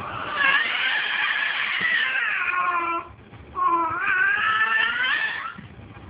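An animal's long, drawn-out wavering calls: two of them, each about two and a half seconds long, with a short break between.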